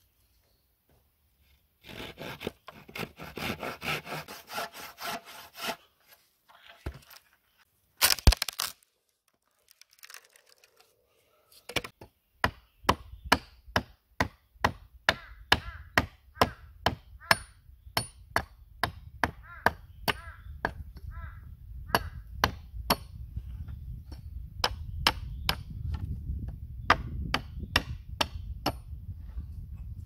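Hand saw rasping through a dry, weathered log for a few seconds, then a loud crack of wood. After that a hatchet chops and splits a dry plank, with sharp strokes about twice a second.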